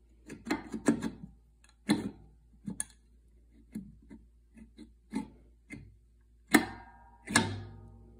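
Irregular clicks and knocks of fingers prying and tapping at the stuck lid of an Ironrite ironer's oil housing. Two louder knocks near the end ring briefly.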